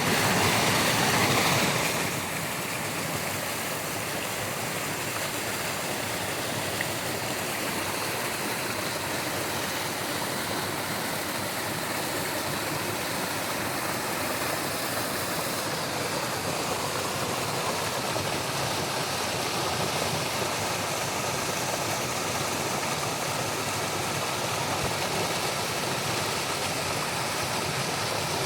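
Waterfall: a steady rush of falling water, a little louder for the first two seconds or so.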